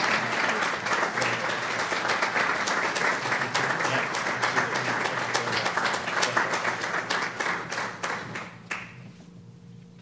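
Audience applauding with many overlapping claps, dying away near the end.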